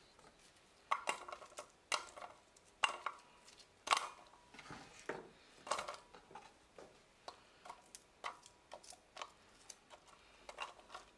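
Onion wedges dropped and laid one after another into an empty nonstick rice-cooker inner pot: irregular light taps and clatters, some with a short ring from the pot.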